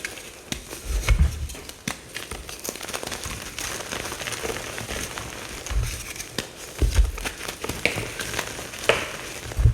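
Navy blue mica powder bombs crushed and crumbled by hand, a steady dry crunchy crackling with a few low thuds, about 1 s in, around 6 and 7 s, and near the end.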